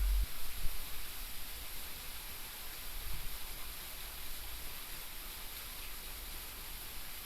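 Steady outdoor background noise, an even hiss, with a low rumble that cuts off abruptly just after the start and a faint knock or two; no crossing bell or train yet.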